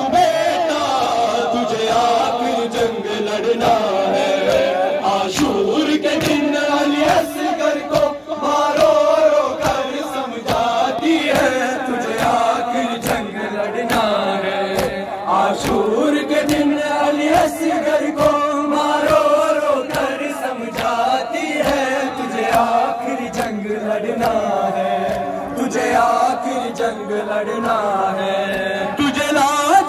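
Group of men chanting an Urdu noha (Shia lament) together, with a regular beat of hands striking chests (matam) running under the chant.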